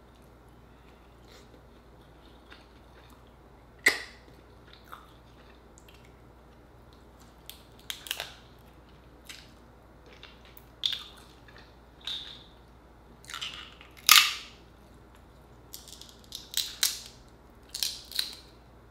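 Cooked Dungeness crab shell being cracked and snapped apart by hand, close up: sharp cracks at irregular intervals, the loudest about fourteen seconds in, with a quick run of several cracks near the end.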